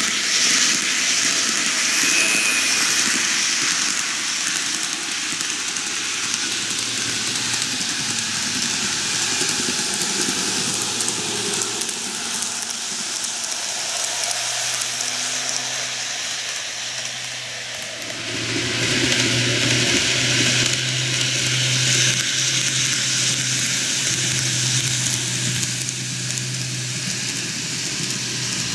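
N-gauge model electric trains running on plastic-based track: a steady rolling rush of wheels on rail with a low motor hum. It grows louder about 18 seconds in.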